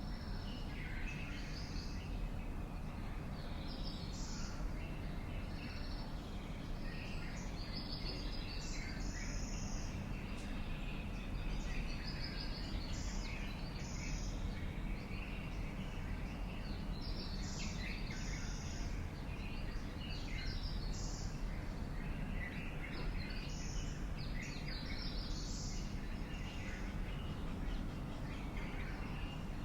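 Several birds chirping and calling, short notes repeated in clusters throughout, over a steady low background rumble.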